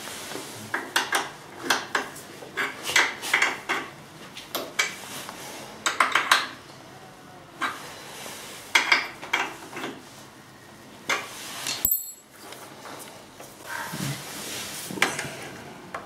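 Wrench clinking against the rear chain-adjuster nuts and bolts on a motorcycle swingarm, in irregular bursts of short metallic clicks.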